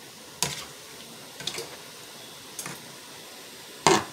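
A large spoon knocking against a cooking pot while a seafood boil is stirred: four short knocks about a second apart, the last one loudest.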